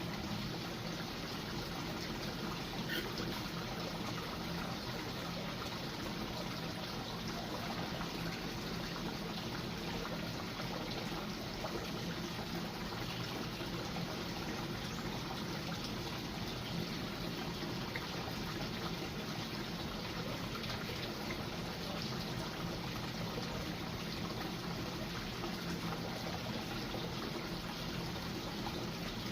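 Water trickling and splashing steadily without a break.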